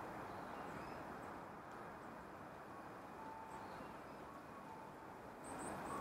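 Steady low outdoor background rumble with a few faint, high, short chips from small birds, including a quick run of three near the end.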